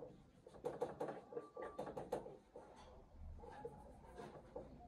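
Faint, irregular taps and scratches of writing, a pen or marker working against the writing surface.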